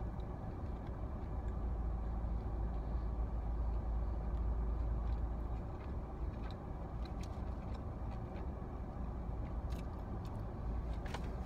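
Steady low rumble of a car's idling engine heard inside the cabin, with a few faint clicks over it.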